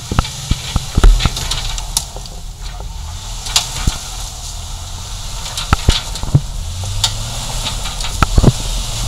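Hummer H3's engine running low and slow as it crawls through a deep rutted dirt trail, a little stronger near the end, with scattered sharp cracks and knocks of the tyres and body on rocks, dirt and brush.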